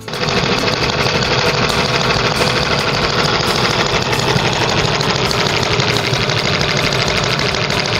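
A homemade single-cylinder four-stroke overhead-valve gasoline model engine with a 1-inch bore, running steadily with a fast, even beat.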